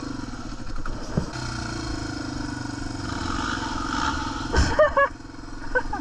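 Off-road motorcycle engine running steadily at low revs, with a knock and brief voice sounds about five seconds in.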